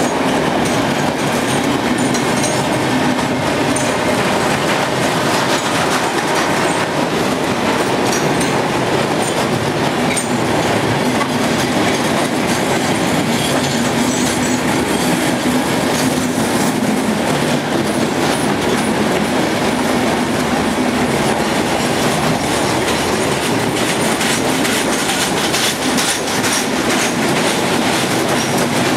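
Loaded freight train's hopper cars and boxcars rolling past, a steady, loud rumble and rattle of steel wheels on the rails.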